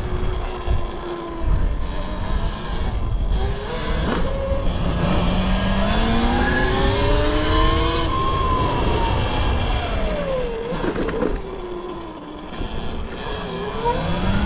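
Talaria XXX electric dirt bike's motor whining, its pitch climbing as the bike speeds up for a few seconds, then falling as it slows, and rising again near the end. Wind rushes over the microphone throughout.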